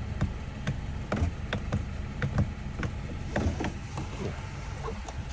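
Scattered light clicks and knocks from handling the car's driver door and power-window switch, over a steady low rumble.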